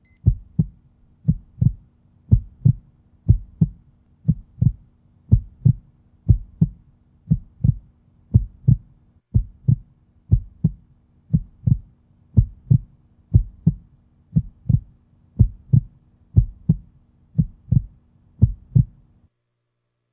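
Heartbeat sound effect: a steady lub-dub double thump at about 90 beats a minute, over a faint low hum, stopping near the end.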